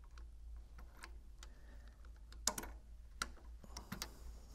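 Faint scattered clicks and taps of a shim tool being worked into place under a vertical multi-stage pump's shaft coupling, with two sharper clicks in the second half. The shim is going in to set the height of the impeller stack.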